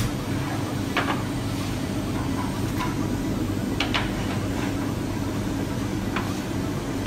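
Steady low mechanical hum of bakery equipment at a fired bread oven, with a few sharp clicks and knocks: about a second in, near three seconds, twice near four seconds, and near six.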